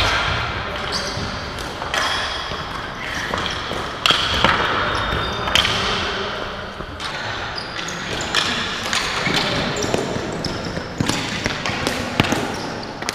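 Ball hockey being played on a concrete arena floor: sticks clacking and the ball knocking on the floor, boards and net in irregular sharp hits, with players calling out.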